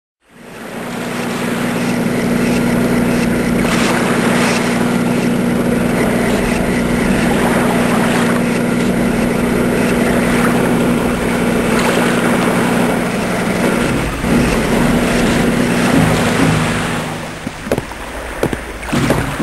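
Small wooden motor boat's inboard engine running steadily with a low hum, under a rush of wind and water. It fades in at the start and drops away near the end.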